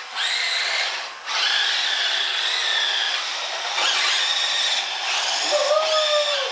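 Electric motors of radio-controlled toy trucks whining, the pitch gliding up and down as they speed up and slow, with two brief drops when the cars stop, right at the start and about a second in.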